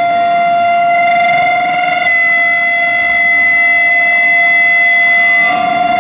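Steady high-pitched machine whine from a high-frequency pipe welding line, several held tones at once, shifting abruptly to a different set of pitches about two seconds in and back near the end.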